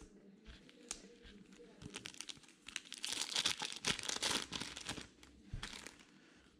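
Foil wrapper of a trading-card pack crinkling and tearing as it is opened, with the crackle thickest about halfway through.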